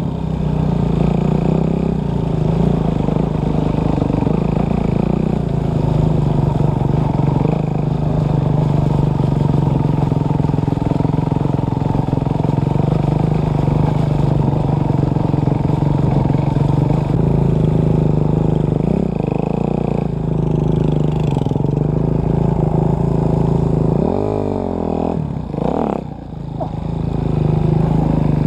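Enduro dirt bike engine running under way, ridden along a muddy track and heard from on board. Near the end the revs drop and climb sharply a few times as the throttle is worked.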